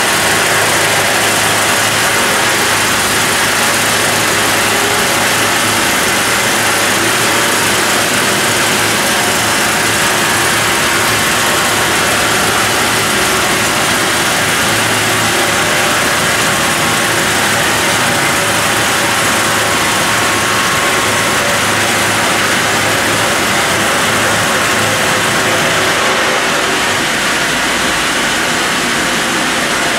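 Brenta CD horizontal bandsaw mill running and its band blade sawing lengthwise through a log: a steady, loud machine hum under a dense hiss of cutting. The sound shifts about 26 seconds in.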